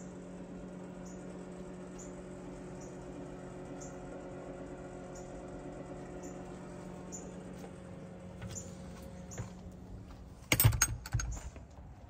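Steady low hum with short high chirps repeating about once a second, then a cluster of loud wooden knocks and clatter near the end, as of a coop door being handled and shut.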